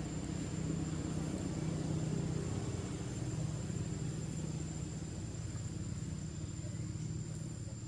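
Steady low engine-like hum, as of a vehicle idling nearby, with a thin constant high-pitched tone above it.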